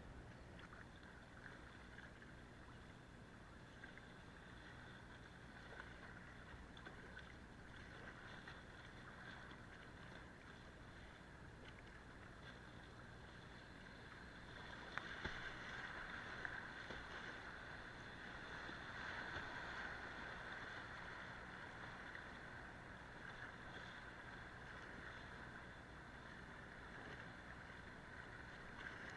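Fast river water rushing and splashing around a kayak, with paddle strokes in the water. The water noise grows louder about halfway through as the kayak runs into a stretch of waves.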